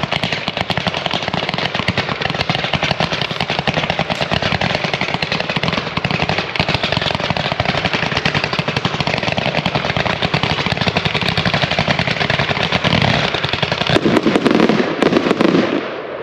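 A 100-shot Z-shape consumer fireworks cake firing red, white and blue comets to hammer: a dense, continuous stream of rapid shots and loud bangs, with a heavier, louder stretch near the end before it stops suddenly.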